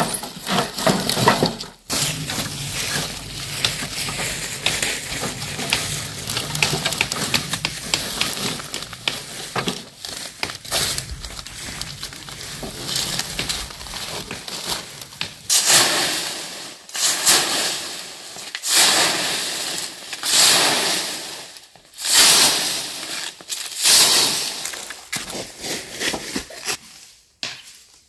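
Dry branches, twigs and leaves rustling, snapping and crackling as they are piled into a metal fire grill, with handfuls of dry grass stuffed in among them. The handling comes in irregular bursts, several of them louder in the second half.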